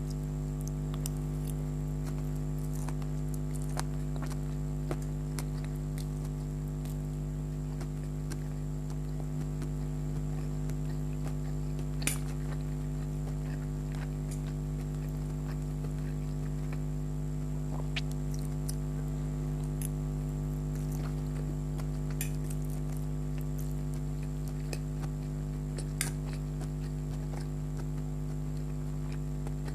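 Faint, scattered small clicks and mouth sounds of someone eating chicken hakka noodles, over a steady electrical hum. A couple of sharper clicks stand out, one about twelve seconds in and one about twenty-six seconds in.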